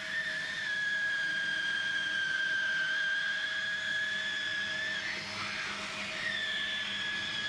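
FOXSEW rotary hot air welding machine running: a steady high-pitched whine that stops about five seconds in and starts again about a second later, over a steady lower hum and faint hiss.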